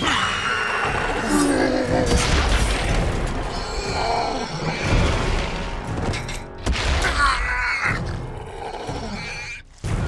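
Animated fight-scene soundtrack: dramatic music with creature growls and roars and heavy booming impacts over it.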